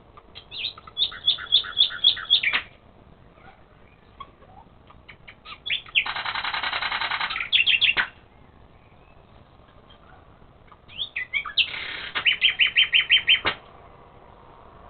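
A songbird singing three loud phrases of about two and a half seconds each, a few seconds apart. Each phrase is a quick series of repeated notes, and the middle phrase holds a dense, rapid trill.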